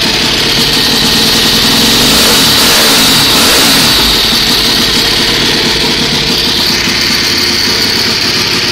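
2006 Aprilia SXV 450's V-twin engine running through its stock, still-restricted exhaust, the pitch rising and falling a few times in the first half as the throttle is blipped, then running steadier.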